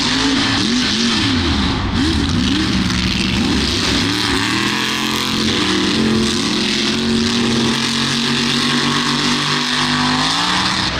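Off-road racing truck engines at high revs, the pitch swooping up and down over the first few seconds and then held fairly steady. A wide hiss runs underneath.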